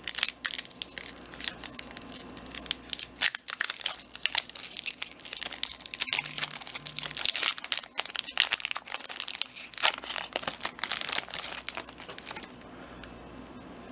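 Foil wrapper of a Pokémon booster pack crinkling and tearing as it is opened and handled, a dense run of crackles that thins out near the end.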